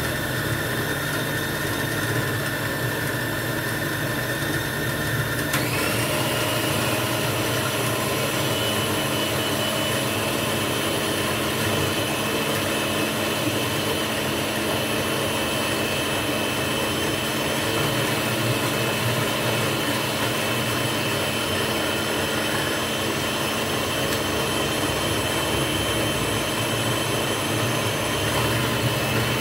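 Electric food processor motor running continuously as tomato pieces are fed in to be chopped. About five and a half seconds in, its whine steps up to a higher pitch and then holds steady.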